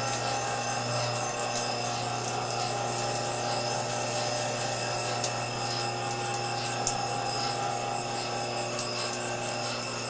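A steady machine hum with hiss and several constant tones, and a couple of faint ticks.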